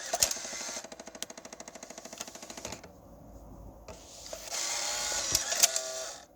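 Rapid, even mechanical clicking from the Alpine 5905 car stereo's mechanism, about ten clicks a second for some two seconds, then after a short lull a louder, denser mechanical rattle that stops just before the end.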